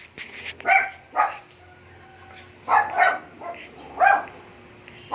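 Dog barking: about five short barks, two of them coming quickly one after the other near the middle.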